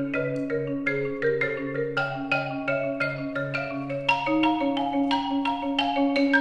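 Marimba playing a quick passage of struck notes, several a second, over steady low sustained tones. About four seconds in, the line moves higher.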